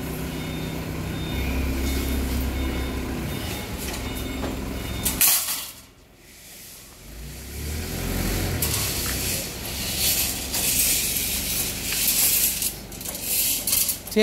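A vehicle engine runs with a steady low rumble. About five seconds in it is cut off sharply by a knock. In the last several seconds come irregular bursts of hissing noise.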